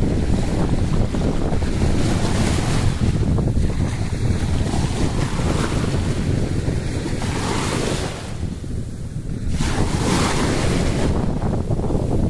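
Small waves washing in over sand in shallow water, swelling to a louder splashing wash three times, over a constant rumble of wind buffeting the microphone.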